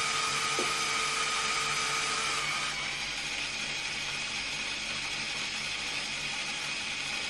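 Electric Control+ motors of a LEGO Technic 42100 Liebherr R 9800 excavator whirring through their gears and linear actuators as the arm and bucket move, running a custom-function reset of the bucket. One tone in the whir drops out about two and a half seconds in, and the whir carries on a little quieter.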